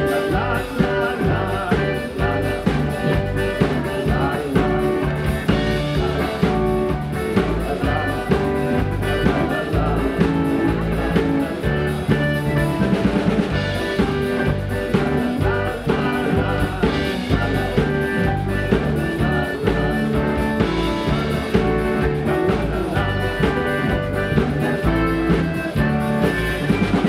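Live Slovenian-style polka band playing: piano accordion leading over a drum kit, guitar, bass and keyboards, with a man's singing voice at times.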